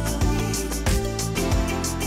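Background music with sustained notes and a steady beat.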